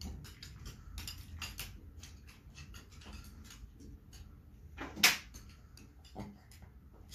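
A small dog's claws clicking and scrabbling on a wooden parquet floor as it paws and noses a tennis ball, with light taps throughout. One sharp, much louder sound about five seconds in.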